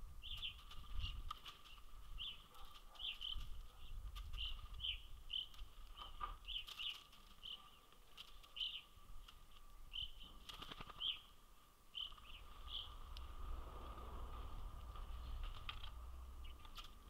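Short, high bird chirps repeating about twice a second, with a few sharp clicks in between.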